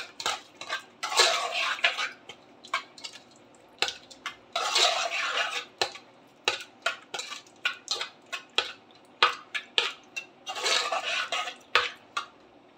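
Steel spoon stirring raw mutton with spices, yogurt and oil in an aluminium pressure cooker: many sharp clinks of the spoon against the pot, with three longer scraping spells along its bottom and sides.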